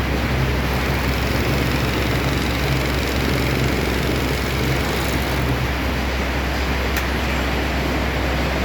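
Hop baling press machinery running with a steady mechanical hum and rush of noise. A low hum drops out about two-thirds of the way through, and there is a single sharp click shortly after.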